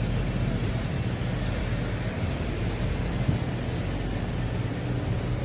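Wind blowing across the microphone: a steady low rumble with a hiss over it.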